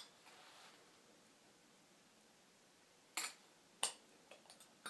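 Two sharp clicks about half a second apart, about three seconds in, then a few fainter ticks: small glass petri dishes knocking against each other and the tub as they are handled. Otherwise near silence.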